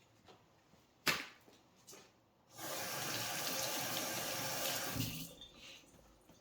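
A kitchen tap running for about two and a half seconds, then shut off, after a single sharp knock.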